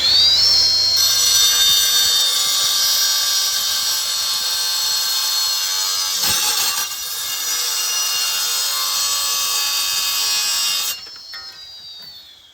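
Battery-powered Husqvarna cut-off saw at full speed, its blade grinding through a gate chain link next to the padlock with a harsh, high-pitched whine. About a second from the end the cut stops and the blade winds down with a falling whine.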